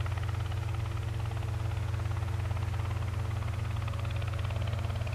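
Robinson R22 Beta helicopter running on the ground with its rotor turning: its four-cylinder Lycoming piston engine makes a steady drone with a strong low hum and several steady tones above it.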